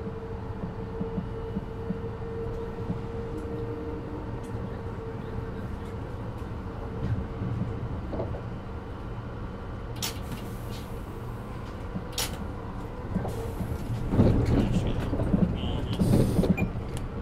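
Interior running noise of a Class 333 electric multiple unit, heard above its traction motors and rear bogie: a steady rumble of wheels on rail with a traction-motor hum that fades out after about five seconds. Two sharp clicks come about two seconds apart past the middle, and the rumble grows louder near the end.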